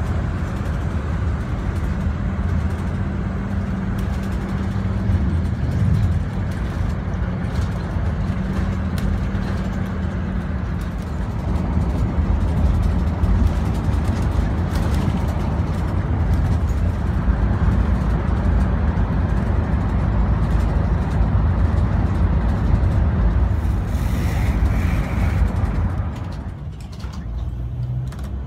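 Bus engine and road noise heard from inside the cabin, a steady low drone. There is a short higher tone about 24 seconds in, and the noise eases a little near the end.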